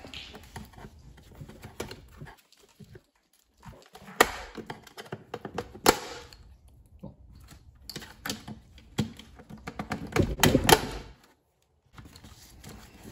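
Plastic wiring clips and connectors on a car seat's steel frame clicking and rattling as they are pried and unclipped by hand with a small tool. There are sharp single clicks about four and six seconds in, and a busier run of clicks and rustling around ten seconds in.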